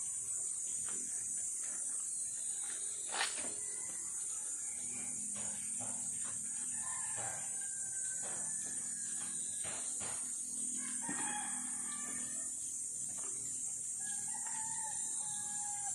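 Roosters crowing in the background several times, over a steady high-pitched insect drone. Scattered knocks and rubbing from hand-washing a car, with one sharp knock about three seconds in.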